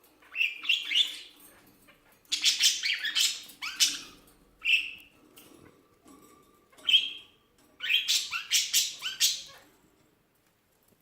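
A small pet squeaking in repeated bouts of high-pitched squeaks, about five bouts with short pauses between them.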